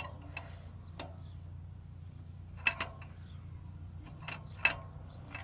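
Wrench tapping and clinking against the metal EGR tube fitting and pipe: a handful of sharp, irregularly spaced metallic clicks over a faint low hum.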